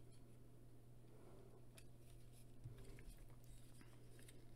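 Faint clicks and taps of the hard plastic parts of a Transformers Cyberverse Dinobot Slug action figure being folded and snapped into place during transformation, over a low steady hum.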